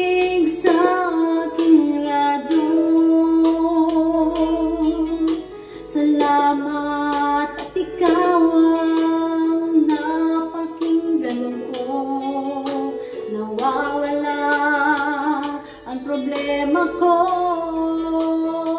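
A woman singing into a handheld karaoke microphone over a backing track with a steady beat, holding long notes with a wavering vibrato.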